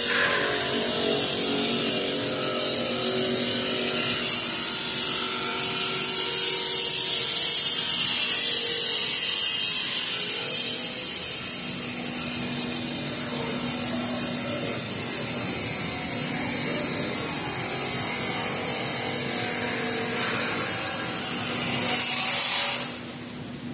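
Factory machinery running: a steady hum under a loud high hiss, which stops abruptly near the end.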